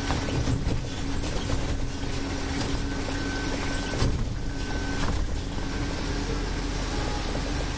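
Scania Citywide city bus driving, heard from the driver's seat: the engine runs with a steady hum, and several short knocks and rattles come through, the loudest about four seconds in.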